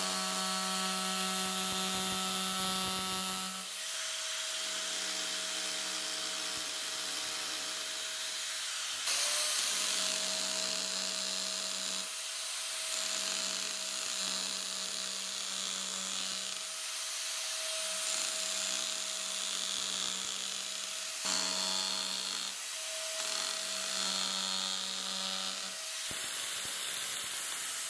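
Arbortech Power Chisel, a reciprocating carving chisel driven by an angle grinder, running with a steady hum as its V-chisel cuts shallow grooves into wood. It runs in several passes of a few seconds each with short breaks, and stops near the end.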